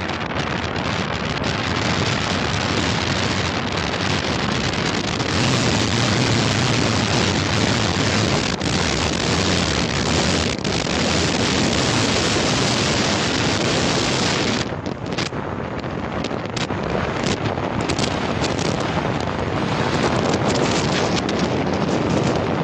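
Wind rushing over the microphone from a moving car, mixed with road and engine noise. About two-thirds of the way through the rush eases and scattered knocks come through.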